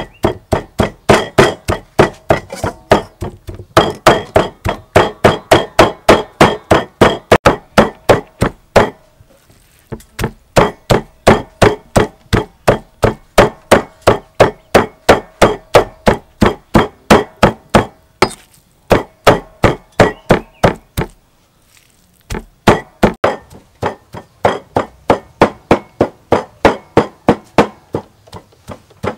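Meat cleaver chopping raw pork on a wooden chopping board, rapid even knocks about four a second as the meat is minced, pausing briefly twice.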